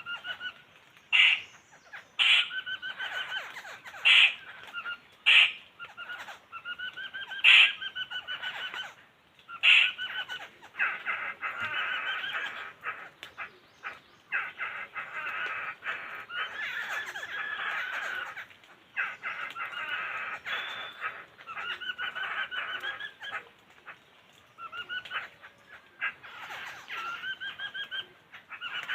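Laughingthrushes calling: a series of loud, sharp single calls, then long bouts of dense, rapid chattering with short pauses between bouts.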